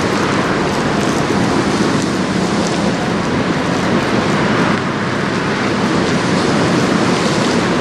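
Steady rush of wind and rain at a riverside.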